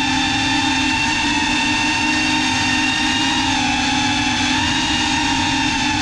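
CineLog35 3.5-inch ducted cinewhoop FPV drone's motors and propellers whining steadily in flight, with a slight drop in pitch about three and a half seconds in.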